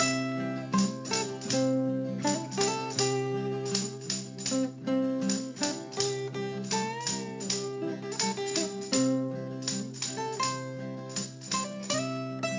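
Background music of plucked guitar notes picked in quick runs over a steady low note.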